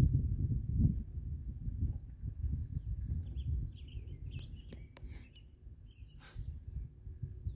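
Low wind rumble on the microphone of a chair riding an open chairlift, over steady high-pitched insect chirping that pulses about twice a second. A few short bird chirps come in the middle, and a couple of light clicks follow.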